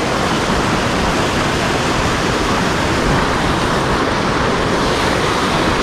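Water pouring over a dam spillway and churning in the foaming tailwater below: a loud, steady rush.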